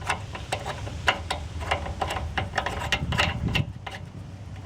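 Rapid, irregular clicking and ticking of the water heater's drain caps being screwed back onto the service valves and tightened by hand, over a steady low hum. The clicks stop a little before the end.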